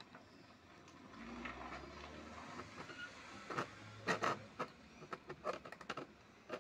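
Small screwdriver turning the screws of an amplifier board's screw terminal blocks to clamp speaker wire, giving a cluster of sharp clicks and scrapes over the last three seconds. A low rumble comes before them.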